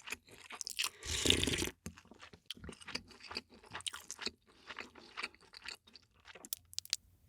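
Close-miked eating: repeated crunching and chewing of food, with a louder rush of noise lasting under a second about a second in.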